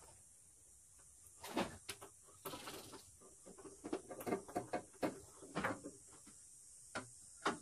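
Irregular light clicks, taps and scrapes of hand work with a screwdriver and wires, disconnecting the headlight and blackout-light wiring connections.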